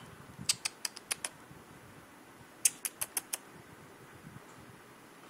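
A small puppy letting out short, high-pitched yips, about six in quick succession early on and another quick run of five about three seconds in.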